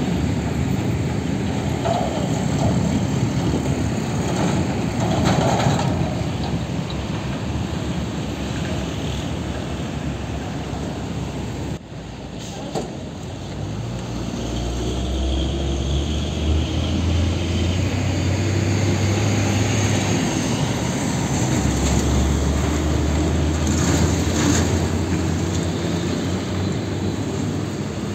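Heavy diesel trucks in passing road traffic. After a break about twelve seconds in, a truck's diesel engine drones low and steady as it approaches, easing off and coming back a little later.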